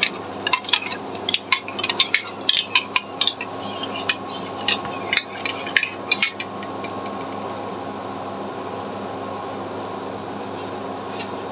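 A spoon stirring powdered milk into a pot of boiling tea, clinking quickly and unevenly against the pot for about six seconds, then stopping. A steady hiss runs underneath throughout.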